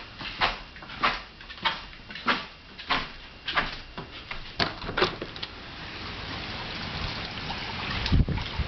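Floodwater sounds in a tropical storm: a regular run of splashes, about one every two-thirds of a second, that stops about five seconds in. Then a steady hiss of rain and running water, with a dull thump near the end.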